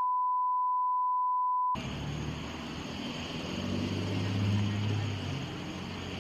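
A steady 1 kHz censor bleep masking spoken personal details cuts off sharply about two seconds in. It gives way to the low, steady hum of an idling vehicle.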